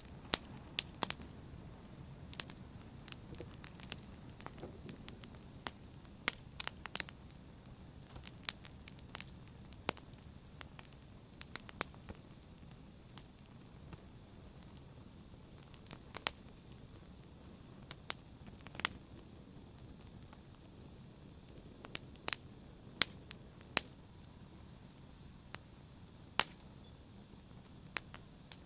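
Wood fire burning in a fireplace, crackling with irregular sharp pops and snaps over a low steady hiss of the flames.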